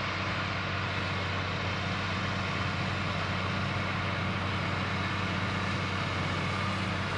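Large farm tractor's diesel engine running steadily at constant speed, a low even hum with no change in pitch.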